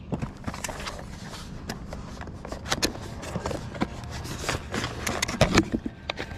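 Small objects being handled and moved about: a run of short knocks, clicks and scrapes, busiest about five and a half seconds in, over a low steady background rumble.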